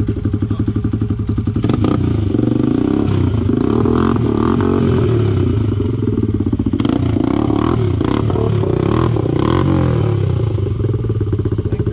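ATV engine idling with a rapid even pulse, then revved for about eight seconds with the revs rising and falling as the quad sits stuck in deep mud and is pushed, before dropping back to idle near the end.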